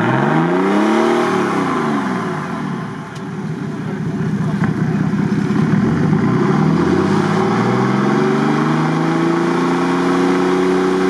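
Engine of a lifted off-road Lada Niva revving while the car is stuck nose-down on a steep bank: the revs rise and drop back within the first few seconds, then climb again from about six seconds in and hold high.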